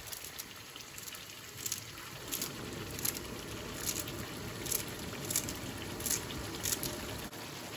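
Scissors snipping fresh coriander into the pan in a steady run of short crisp cuts, about one every two-thirds of a second, over the low bubbling sizzle of a curry simmering on medium heat.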